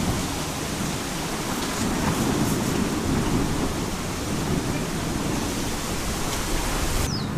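Kilauea lava fountain erupting from a fissure's spatter cone: a steady, dense rushing noise, heaviest in the low end, with a few faint clicks. The sound shifts abruptly near the end.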